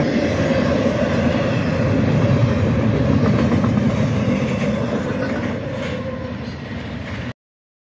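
Double-stack intermodal freight train rolling past, a steady rumble of steel wheels on the rails. It eases off over the last couple of seconds and then cuts off abruptly.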